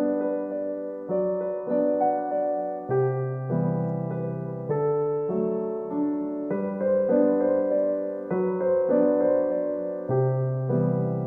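Background piano music: a steady run of single notes and chords struck about every half second.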